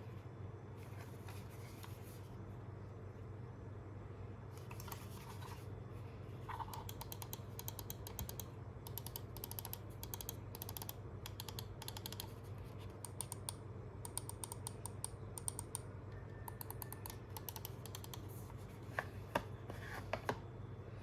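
Press Play Nova Ergo gaming mouse buttons clicked in quick runs of rapid clicks, with a few louder single clicks near the end.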